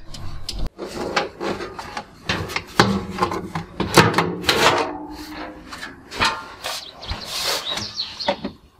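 Front panel of a Whirlpool front-loading washing machine being pulled off its frame: an irregular run of knocks, clicks and scraping of panel against cabinet, with a sharp knock about four seconds in and a longer scrape near the end.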